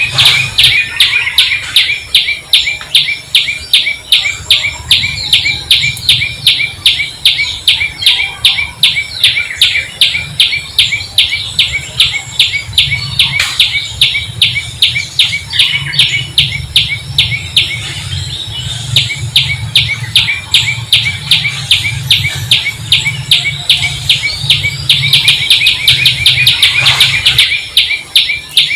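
Birdsong: a small bird chirping rapidly and evenly, about three or four short high chirps a second, over a steady low hum.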